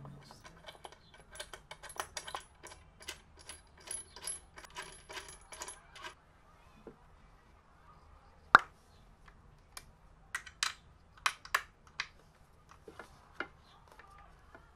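Small metal clicks and clinks of a hex key and bolt being worked into the metal corner bracket of a wooden stool. It starts as a quick run of light ticks with a faint metallic ring for about six seconds. Then come a few sparse, sharper clinks, the loudest about halfway through.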